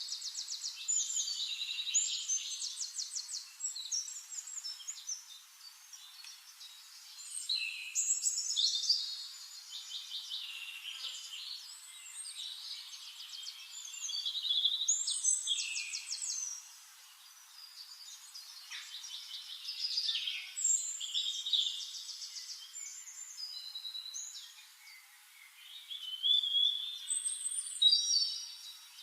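Songbirds singing in phrases of fast trills and warbles, a new phrase every six or seven seconds with quieter chirping between.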